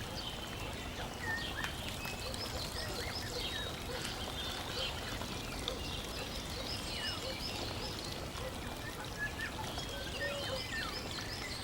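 Small birds chirping and twittering, with repeated short high notes, over a steady rush like running water.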